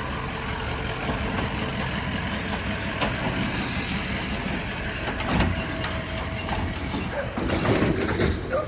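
A vehicle on the move: steady engine and road rumble, with a few sharp knocks and rattles, most of them in the last second or so.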